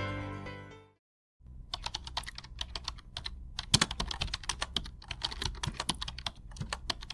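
Background music fading out in the first second, then typing on a computer keyboard: quick, irregular key clicks with short pauses, over a low steady hum.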